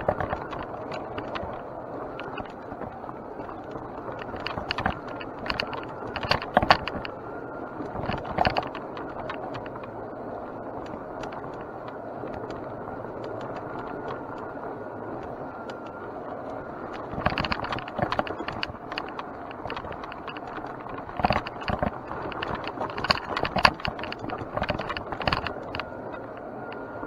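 Mountain bike being ridden on a dirt trail: steady tyre and wind noise, with spells of rattling from the bike over rough ground, about five to eight seconds in and again from about seventeen to twenty-six seconds in.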